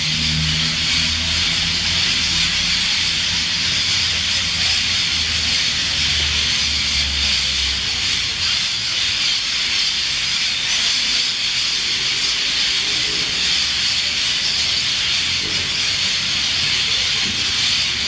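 A loud, steady chorus of cicadas, an even high-pitched hiss that does not let up. Low background music underneath stops about eight seconds in.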